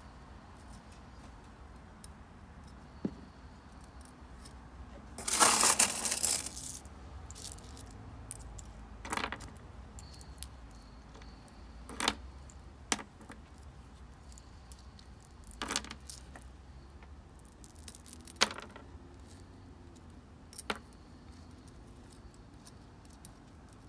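Small pebbles clicking and rattling together in the hands as they are picked up and pressed into place one by one as a top dressing. A longer rattle of stones comes about five seconds in, then single sharp clicks every few seconds.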